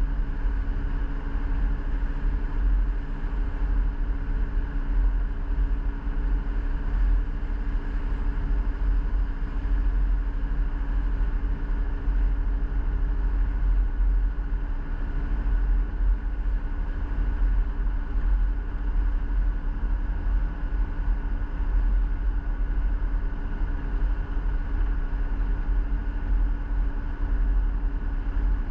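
Motor vehicle driving at a steady speed: a constant engine and road drone with a deep rumble that does not rise or fall.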